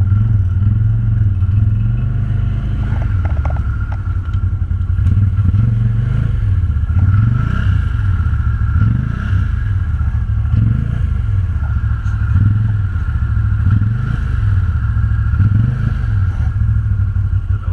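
ATV engine running, its revs rising and falling every second or two as the machine is worked along.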